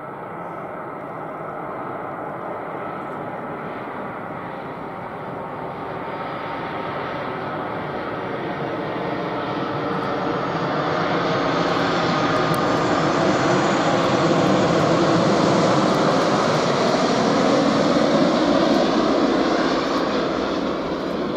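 Airbus A330-300 airliner's jet engines on final approach, a steady whine over a rushing noise that grows louder as the aircraft comes in close, then eases slightly near the end as it flares over the runway.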